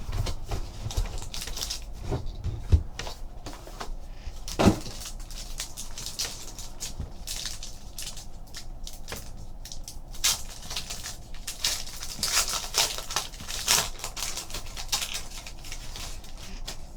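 Rustling, clicking and tapping as sealed trading card boxes and packs are opened and handled, with a sharper knock about four and a half seconds in.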